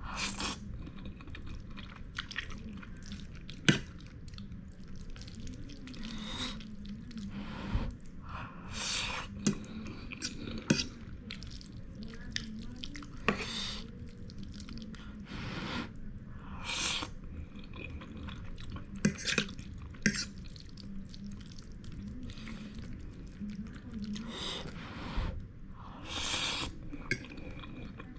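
A person eating hot instant noodles with eggs: repeated short, wet slurps and chewing, with a few sharp clicks scattered between them.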